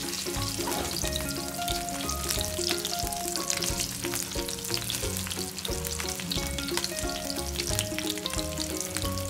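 Boiled arbi (taro root) pieces shallow-frying in hot oil in a non-stick frying pan, a steady crackling sizzle, while a perforated steel spoon presses and turns them.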